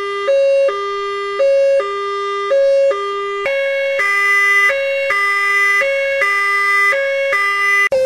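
Two-tone hi-lo fire truck siren, stepping back and forth between a higher and a lower note about once a second. About halfway through it switches to a brighter, buzzier version of the same two-note pattern.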